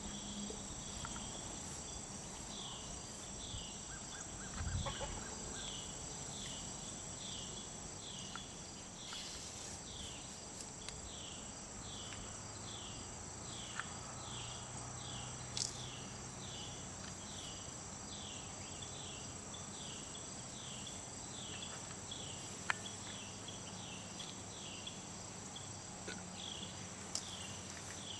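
Summer insect chorus: a steady high-pitched drone with a short falling chirp repeating about once or twice a second, and a few faint knocks.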